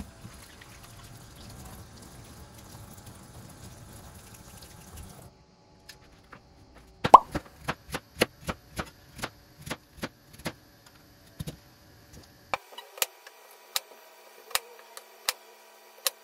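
Kitchen tap running into a stainless-steel sink for about five seconds. After a short pause, a cleaver chops white radish on a wooden cutting board in sharp, evenly spaced strokes, about two a second.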